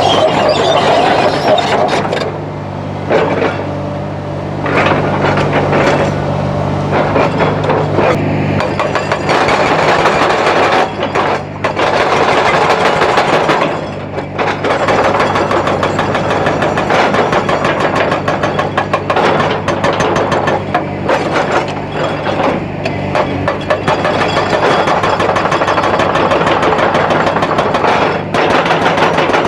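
Hydraulic excavator's diesel engine running steadily under load, with frequent knocks, clatter and scraping of stone against the steel bucket or attachment.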